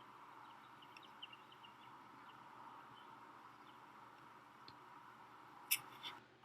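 Faint steady background hiss with scattered faint chirps, then two sharp clicks near the end.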